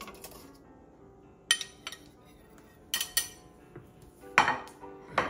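Kitchenware clinking: a metal serving spoon and ceramic dinner plates knocking against a steamer pot and each other. About six short, sharp clinks with brief ringing, the loudest a little past four seconds in.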